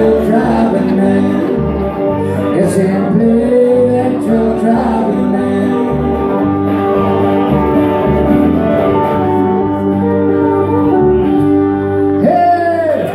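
Live country band playing, with pedal steel guitar and acoustic guitar over a steady beat. About twelve seconds in, a sliding note sounds as the song comes to its close.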